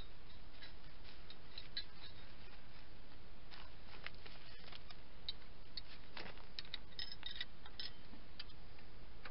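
Scattered light metallic clicks and ticks from hand tools and brake caliper hardware being handled, irregular and thickest in the second half, over a steady background hiss.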